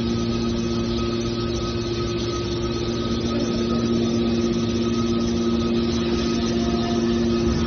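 Small aluminum can baler's machinery running, a steady hum with two constant low tones over an even mechanical noise.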